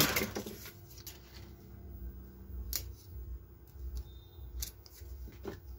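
Scissors cutting a small piece of paper: a few separate sharp snips over a low rumble of handling.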